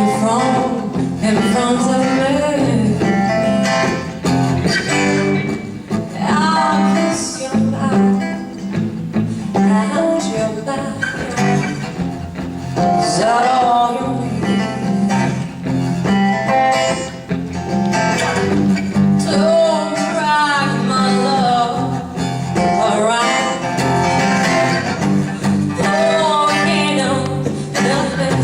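Live folk-rock song: guitar playing under a singing voice whose melody glides up and down.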